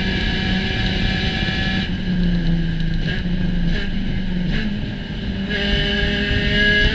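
Spec Racer Ford Gen3 race car engine at racing speed. It eases off for about three and a half seconds with three short blips, then accelerates again with pitch rising from about five and a half seconds in.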